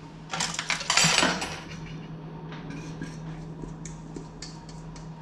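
Stainless steel mixing bowls clattering and scraping against each other, loudest for about a second near the start, followed by a run of lighter metallic clinks and taps.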